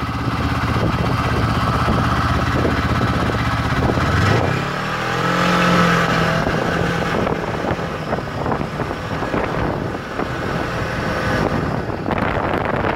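Yamaha snowmobile engine running at low speed along a snowy trail, its pitch rising and falling once about five seconds in.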